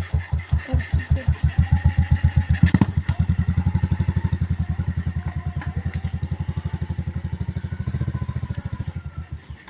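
Small single-cylinder vehicle engine running with an even chugging beat. The beat quickens a little about three seconds in, just after a sharp clack.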